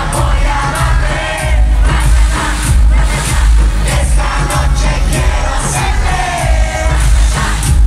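Live reggaeton concert music played loud through a PA, with a heavy bass and singing voices, and the crowd's noise mixed in.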